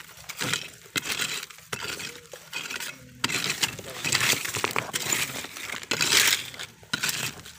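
Small metal hand tool scraping and raking through gravelly soil and dry leaves, with repeated scratches and clinks of small stones, busiest and loudest in the second half. The ground is being cleared to uncover buried earthstar puffball mushrooms.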